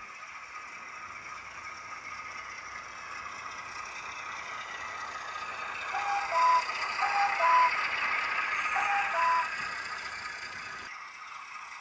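A model locomotive's LokSound sound decoder plays a British Rail Class 08 diesel shunter sound file through its small speaker. The engine sound builds steadily louder, with three short tooting phrases about halfway through.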